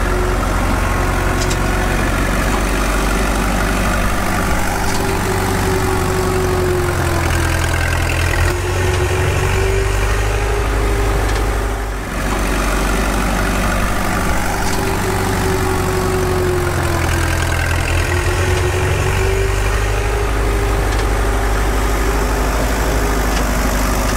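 Mini tractor's engine idling steadily, a low rumble under a droning tone that sags and rises again. The same stretch repeats about every twelve seconds, with a short dip in level in the middle, as if the sound is looped.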